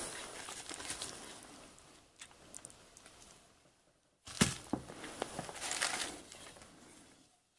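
Footsteps and handling noises: shuffling and rustling, with a few small clicks and a sharp knock about four and a half seconds in.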